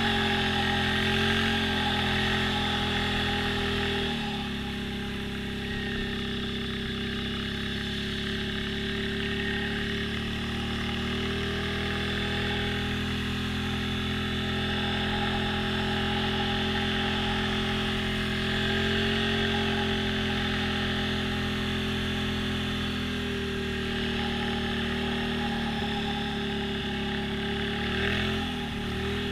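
ATV engine running steadily, its pitch stepping up or down a few times as the engine speed changes.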